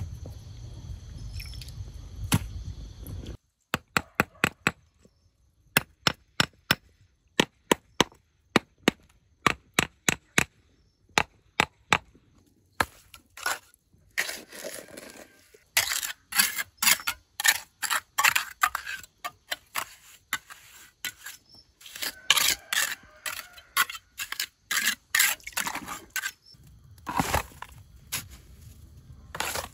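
Rocks and wet cement mortar being worked by hand: a long run of sharp, separate knocks, then denser scraping and knocking. It opens with a few seconds of low rumbling noise that cuts off suddenly.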